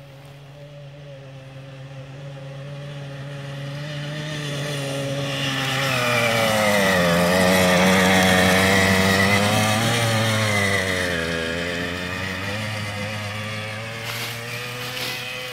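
Homemade buggy's small engine running as it drives past across snow, growing louder to a peak about halfway through and then fading. Its pitch rises around the middle and drops back as it moves away.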